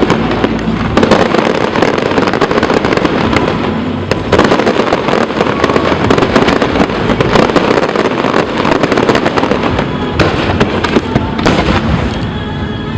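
Aerial fireworks display: a dense, continuous barrage of bursts and crackle with several louder bangs mixed in, thinning out near the end.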